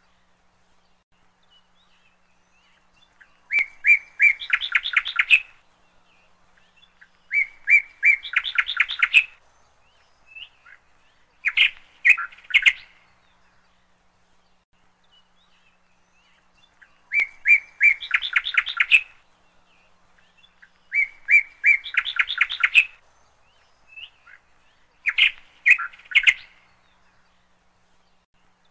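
A songbird singing in short phrases, each a few chirps followed by a quick trill, about every four seconds, with a longer pause near the middle.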